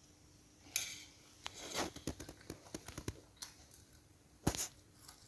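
Faint, scattered clicks and light scrapes of a spoon against a dish, with a louder clack about a second in and another near the end.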